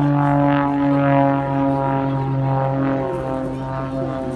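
Biplane's propeller engine droning overhead in a steady, even tone, its pitch sinking very slightly as it passes.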